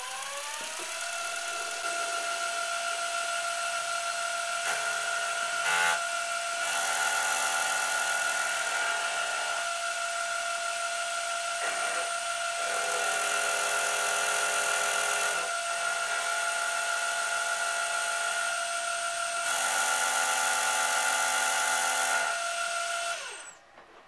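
Milling machine spindle spinning up with a rising whine, then running steadily while an insert face mill cuts a metal block held in a vise. A harsher cutting noise swells three times over the whine as the cutter takes passes. Near the end the spindle winds down with a falling whine and stops.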